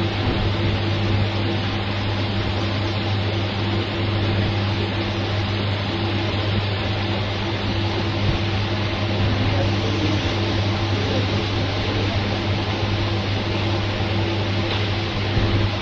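Steady machine hum over an even rushing air noise, unchanging throughout.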